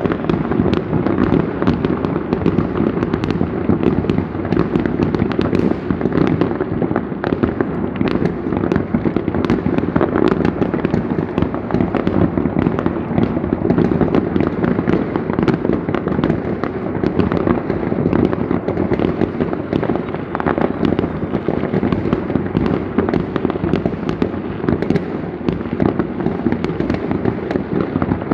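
Many fireworks going off at once: aerial shells and firecrackers making a dense, unbroken mass of bangs and crackles with no pause.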